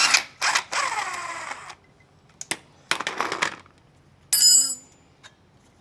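Hand wrench ratcheting on a motorcycle's front axle nut, followed by metallic scraping, and a single ringing metal clink a little after four seconds in.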